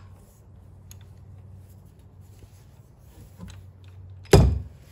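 A 17 mm socket wrench being worked onto a motorcycle's oil-pan drain plug: faint rubbing and small clicks, then one loud sharp knock about four seconds in.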